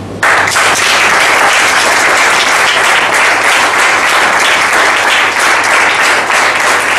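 Audience applauding, a steady round of hand clapping that starts abruptly and holds level.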